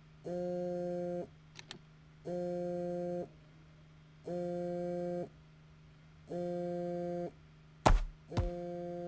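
Phone ringtone for an incoming call: a chord of steady electronic tones rings for about a second, then pauses a second, five times. Near the end two sharp knocks, the first the loudest sound.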